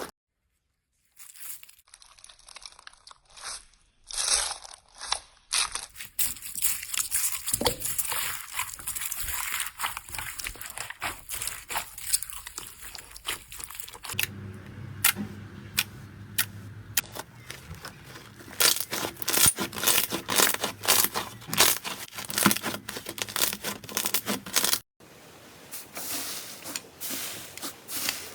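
Slime being squeezed and poked by hand, giving dense crackling and popping clicks with some tearing and crinkling sounds. The sound changes abruptly several times as it cuts between slime clips, after a brief silence at the very start.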